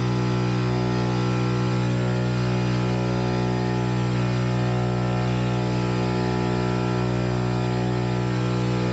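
Electric push propeller of an Archaeopteryx hang glider running steadily under power in flight. It makes a constant drone with a strong low hum and many evenly spaced overtones, at an unchanging pitch.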